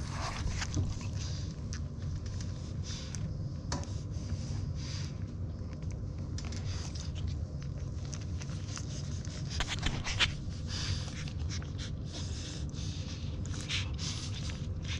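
Newborn French Bulldog puppies suckling at their mother's teats: irregular wet smacking and clicking, one louder smack about ten seconds in, over a steady low rumble.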